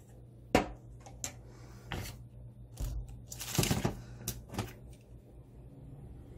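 Clicks and knocks of plastic spoons and small items being handled on a stainless steel sink, about half a dozen in all, with a plastic bag rustling briefly a little past halfway.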